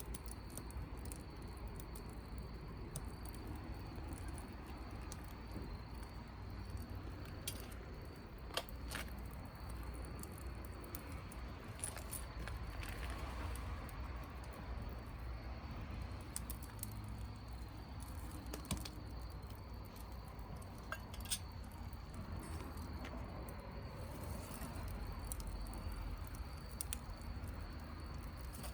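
Wood campfire crackling, with scattered sharp pops over a low steady rumble.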